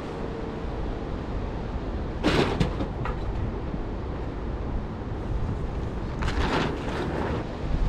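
Steady wind buffeting the microphone, broken by two short bursts of knocking and rustling noise, one about two seconds in and a longer one about six seconds in.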